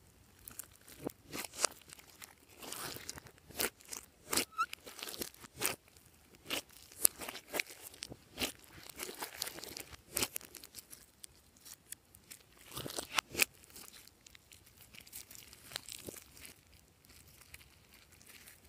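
Hands squeezing, folding and stretching glossy slime with foam beads mixed in: irregular sticky clicks, pops and crackles, some sharper than others, with short pauses between handfuls.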